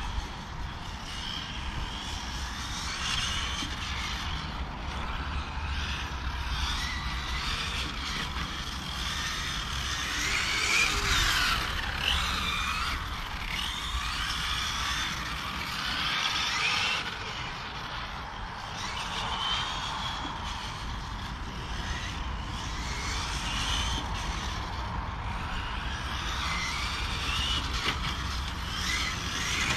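Serpent SRX8 GTe 1/8 electric GT RC car's brushless motor whining around the track, its pitch rising and falling again and again as it speeds up and slows.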